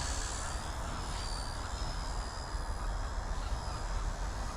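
XK K110s micro helicopter in flight, its brushless motor and rotor head giving a thin, high whine that wavers slightly in pitch as the pilot moves the sticks, over a low steady rumble.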